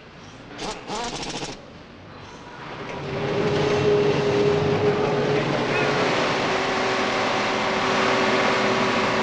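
A brief rapid mechanical rattle about a second in, then a DAF diesel truck engine on a test bench comes up and runs loud and steady, with a whining tone over the engine noise.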